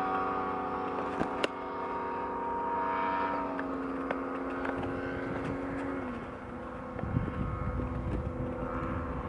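ZDZ 180 petrol engine and propeller of a large radio-controlled Extra 260 aerobatic model running steadily in flight. Its pitch drops twice, about a third of the way in and again about six seconds in, as the throttle is eased back. From about six seconds in, wind rumbles on the microphone.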